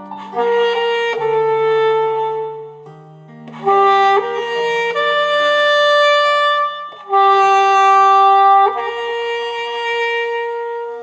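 Alto saxophone playing a slow melody of long held notes, in phrases with short breaths between them, over an accompaniment track with a low sustained bass line.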